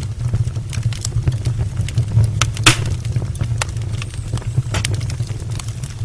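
Firewood burning in an open fireplace: a steady low flutter of the flames with frequent sharp crackles and pops, one louder pop a little under halfway through.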